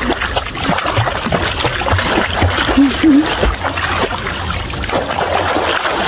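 Sea water splashing and sloshing close to the microphone as a swimmer kicks her feet at the surface. A short voice sound is heard about three seconds in.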